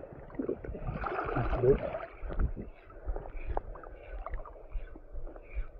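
Shallow water sloshing and lapping close by, swelling into a louder swash about a second in, then settling into light lapping with scattered small clicks.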